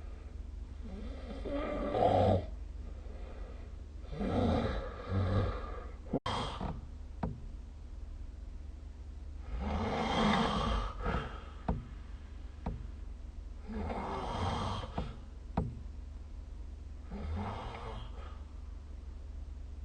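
A sleeping person snoring: five snores about four seconds apart, each swelling and fading, over a steady low hum. A few short sharp clicks fall between the snores.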